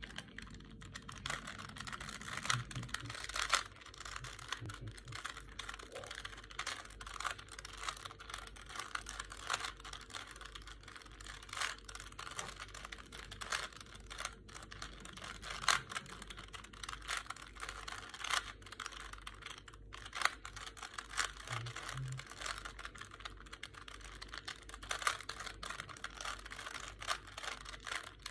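3x3 Rubik's Cube being turned quickly by hand: an irregular, rapid run of plastic clicks and clacks, several a second, as the layers snap round.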